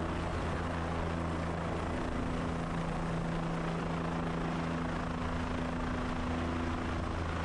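Helicopter's engine and rotor running steadily in flight: a constant hum of several low tones over an even rush. It is carrying a slung bucket of water, near the top of its power at about 1200 pounds.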